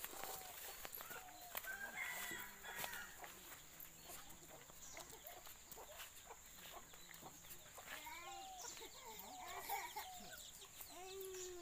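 Chickens clucking, a series of short calls that come mostly in the second half, with scattered light rustles and steps.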